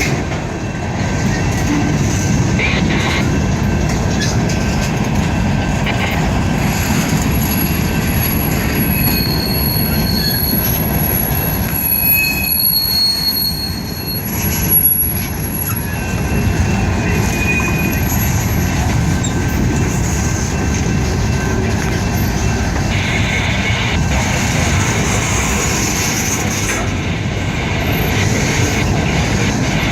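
Freight train rolling past with a steady rumble from its cars and wheels, and thin high wheel squeals in the middle stretch.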